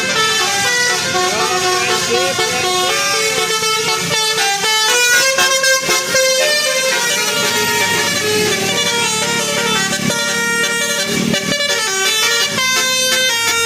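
Basuri-type 'telolet' multi-tone bus horn playing a tune: held notes, several tones sounding together, stepping from pitch to pitch through the whole stretch.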